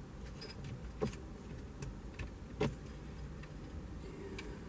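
Plastic trim and window-switch pieces clicking as they are handled and pried: two sharp clicks, about a second in and again about two and a half seconds in, with fainter ticks between.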